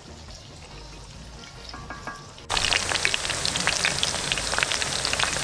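Plantain slices shallow-frying in hot oil in a cast-iron skillet. The sizzle is faint at first, then about halfway through it turns suddenly loud and close, a dense crackle with sharp spits and pops from the oil.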